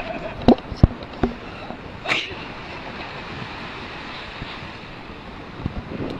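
Surf washing on the beach and wind on the microphone, with a few sharp knocks early on and a short rush of noise about two seconds in.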